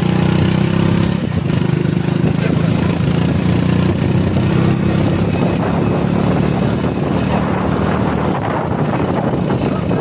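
Motorcycle engine running steadily under way, with wind and road noise.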